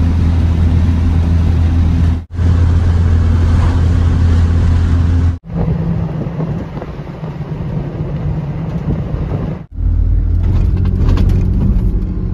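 Car driving, heard from inside the cabin: a steady low engine and road drone. It drops out briefly three times.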